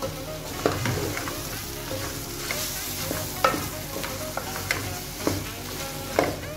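Chicken pieces sizzling in a tomato-and-spice sauce in an aluminium pot as a wooden spoon stirs them, with a steady frying hiss and several sharp knocks of the spoon against the pot.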